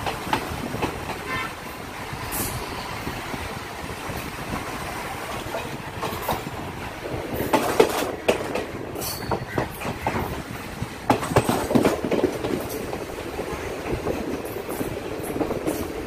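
Train running, a steady rumble with irregular clacks and knocks of the wheels over the rails, loudest around the middle.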